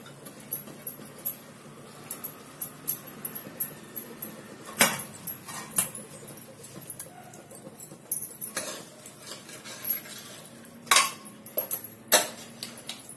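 Metal spoon clinking and scraping against a pressure cooker pot while chana dal is stirred into the fried masala. The irregular clinks are sharpest about five seconds in and again near the end.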